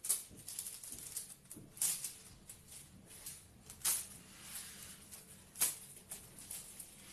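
Thin metallic craft transfer foil crinkling and rustling as it is handled and pressed onto the surface, with four sharper crackles about two seconds apart.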